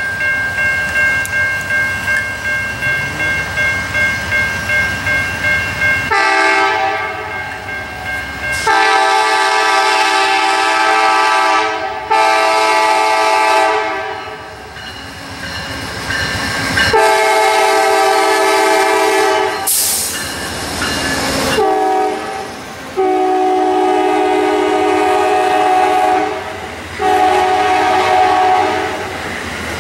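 GE P42DC diesel passenger locomotive approaching and passing, sounding its horn in a run of long blasts with a short one or two among them. Before the horn starts, a crossing bell rings about twice a second. Near the end the passenger cars roll by.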